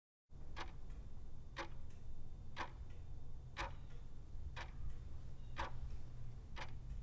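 Clock ticking at one tick a second, about seven ticks, over a steady low hum.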